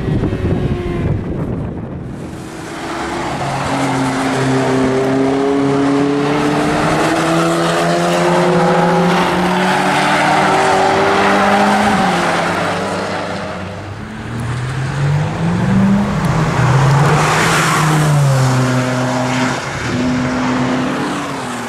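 Ferrari 458 Speciale's 4.5-litre V8 engines revving hard, the pitch climbing through the gears and dropping back several times as the cars accelerate and lift. The sound is loud, easing briefly about two seconds in and again past the middle before swelling back up.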